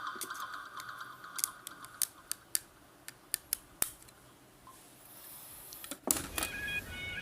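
A run of separate sharp clicks, about eight over two and a half seconds, from small mechanical hand work; a louder burst of noise cuts in near the end.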